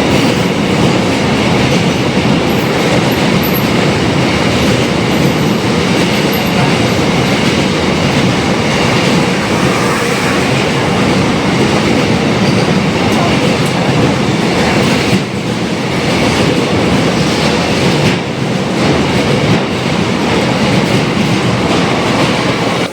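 Mumbai suburban local train in motion, heard from on board: a loud, steady rumble and rattle of the wheels on the track, dipping briefly twice in the second half.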